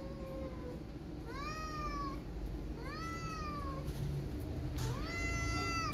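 Cat meowing: a faint, lower meow at the start, then three loud, high meows about a second long each, rising then falling in pitch, the last one longer and steadier near the end.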